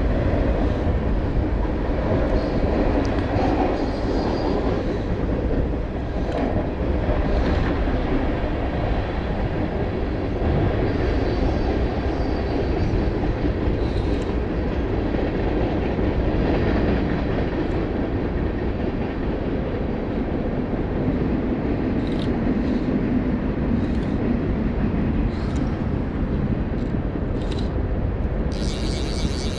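River current rushing steadily around a wading angler, a constant low rumble, with a few faint ticks in the second half.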